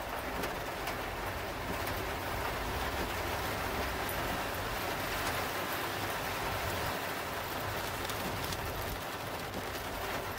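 Heavy rain on a moving car and tyres on a flooded road, heard from inside the car as a steady noise.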